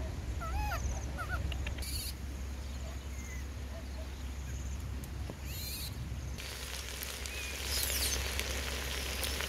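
A baby monkey gives a few short, high squeaky calls while feeding from a milk bottle; later a steady hiss sets in, about two-thirds of the way through.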